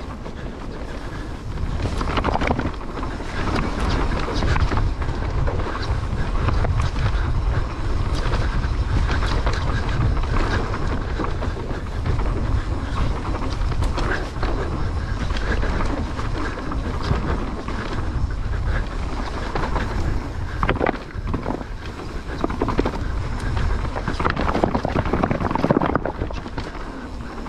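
Mountain bike riding down a dirt trail: wind buffets the microphone and the tyres run steadily over the ground, with frequent knocks and rattles over bumps.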